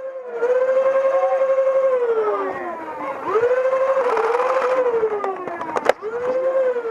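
A siren wailing: a steady tone that twice slides down in pitch and winds back up, with a sharp click near the end.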